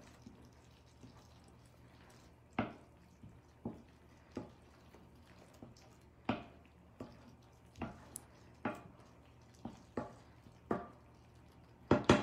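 Thick tomato and pepper sauce simmering in a frying pan, its bubbles popping irregularly about once a second. A louder double knock comes near the end.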